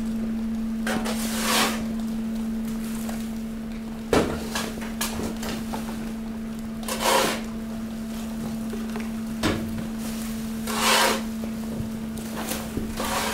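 Hydraulic garbage compactor running with a steady hum while a pile of bagged waste, plastic bottles and cardboard is pressed, the garbage crackling and creaking in several separate bursts, with a sharp crack about four seconds in.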